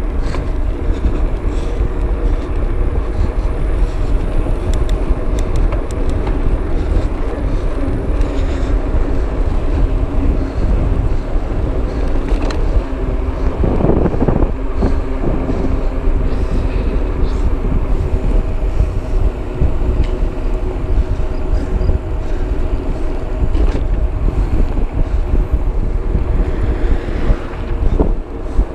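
Wind buffeting the microphone during a fast mountain-bike descent, a steady heavy rumble with scattered clicks and knocks from the bike and trail, and a louder rush about halfway through.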